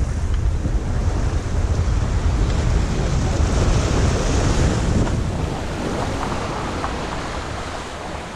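Sea waves washing up against the boulders of a rock jetty, with wind buffeting the microphone. The surf swells about halfway through, then eases off.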